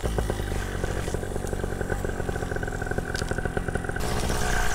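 Moster 185 single-cylinder two-stroke paramotor engine and propeller running steadily during a takeoff run. The sound shifts abruptly about four seconds in.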